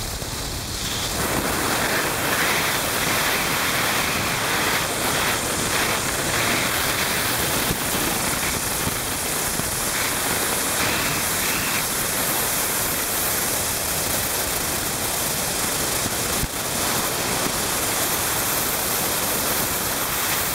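Steady, loud rush of wind over the microphone of a motorcycle riding at speed, with road noise beneath it and no clear engine note.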